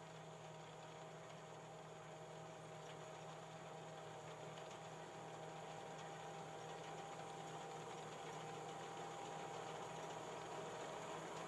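Tracked combine harvester running steadily as it cuts, a faint, even mechanical hum that grows slowly louder.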